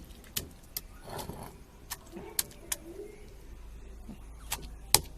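A small child pounding plant material to crush it for colour: irregular sharp knocks, about seven of them, some close together.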